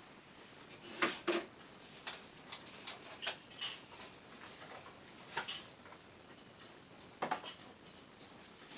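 Scattered light clicks and knocks at irregular intervals, the loudest a pair about a second in and another near seven seconds in, from someone moving about and handling objects.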